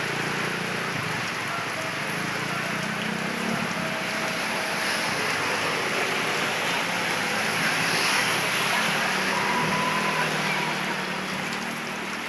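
Heavy rain falling with a steady hiss. The low hum of vehicle engines comes and goes as traffic moves through the floodwater.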